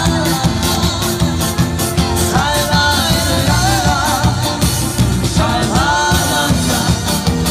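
Live band music: electric bass guitar and a Yamaha Tyros 4 arranger keyboard playing over a steady beat, with a voice singing two phrases, one in the middle and a shorter one near the end.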